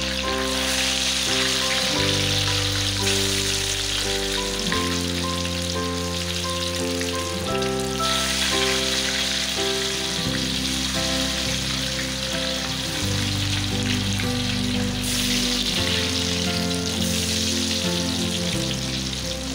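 Potato wedges sizzling as they fry in hot oil in a wok, a steady crackling hiss that is stronger in the first half and again near the end. Background music with slow chord changes plays underneath.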